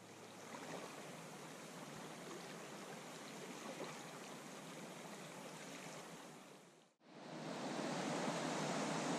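River rapids rushing steadily over rocks. The sound drops out for an instant about seven seconds in and comes back louder.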